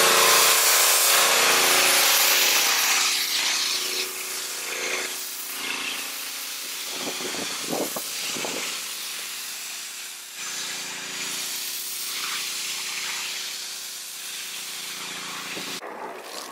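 Pressure washer foam cannon spraying thick shampoo foam onto a pickup's body panels and tyre: a steady hiss of the jet with a low hum underneath. It is loudest for the first few seconds, then softer as the spray moves, and stops shortly before the end.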